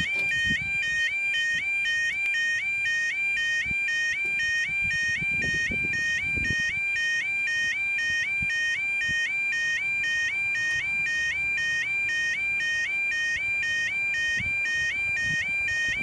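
Level crossing audible warning alarm sounding: an electronic two-tone yodel that alternates steadily between two high pitches, about two cycles a second, and stops suddenly at the very end.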